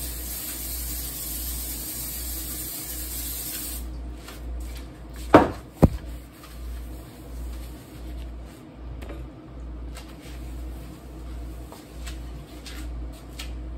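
Aerosol cooking spray hissing as it coats a frying pan, a steady spray that stops about four seconds in. About a second and a half later come two sharp knocks close together, the loudest sounds, then only faint scattered clicks.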